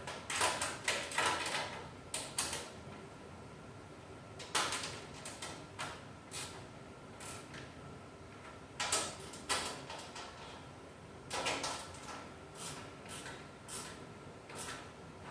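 Ratcheting wrench clicking in short, irregular spurts as bolts are tightened.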